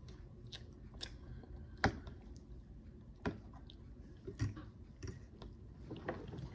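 A person chewing a mouthful of soft fish, with about half a dozen short, sharp mouth clicks and smacks spread through it.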